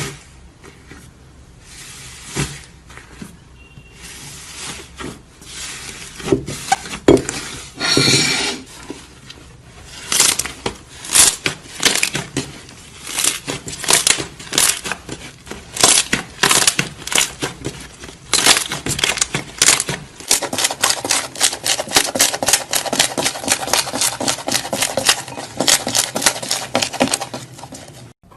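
Crunchy slime being worked and squeezed, a run of sharp crackles and pops that grows denser, turning into a fast, almost continuous crackle in the last several seconds.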